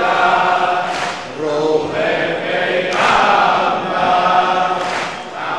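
Large crowd of men chanting a noha, a Shia mourning lament, in unison, with a sharp collective slap of chest-beating about every two seconds.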